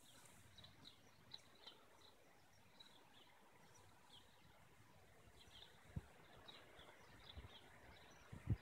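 Small birds chirping faintly, with short scattered calls throughout, over a quiet outdoor hush; a few low thumps near the end.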